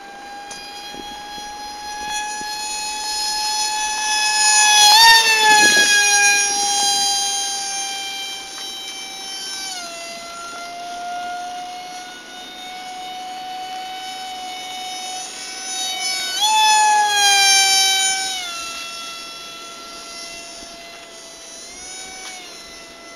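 Motor of a homemade radio-controlled model jet whining steadily in flight. It grows louder twice, about five seconds in and again around seventeen seconds, as it passes close, with the pitch jumping up and then falling back each time.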